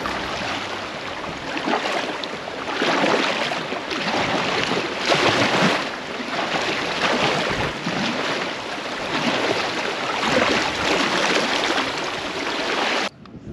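Kayak paddle blades splashing through swift, shallow creek water over the steady rush of the current, the noise swelling with each stroke about once a second. It cuts off abruptly near the end.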